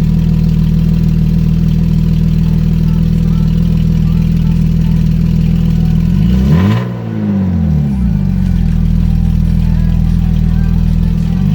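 BMW E36 328is inline-six engine idling with a steady drone, revved briefly twice: the pitch climbs and falls back about six seconds in, and again at the very end.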